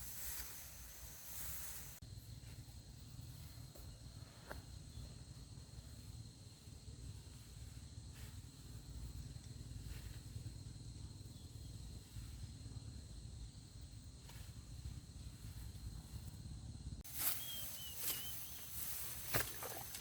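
Outdoor field ambience: a steady low rumble and a faint, steady high-pitched tone, with crisp rustling and a few sharp clicks for about the first two seconds and again in the last three.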